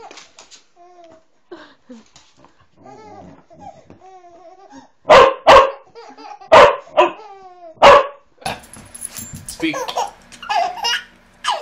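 A baby giggling and squealing with laughter, then a dog barking loudly about five times in quick succession while the baby keeps laughing.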